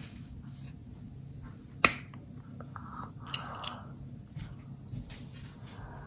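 Small pink plastic toy makeup compact being opened: one sharp snap of the lid about two seconds in, then a few lighter clicks and handling rustles.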